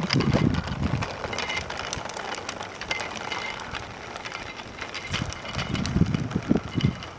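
Small child's bicycle with training wheels rolling on asphalt: a gritty rolling noise with scattered small clicks and rattles. Low rumbles come in the first second and again about six seconds in.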